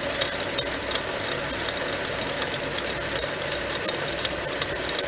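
Metal lathe running steadily with a motor and gear hum and a light, fairly regular ticking.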